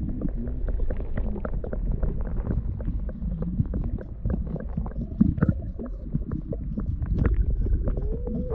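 Underwater sound through a submerged action camera: a muffled low rumble with many small clicks and knocks from water moving against the camera housing.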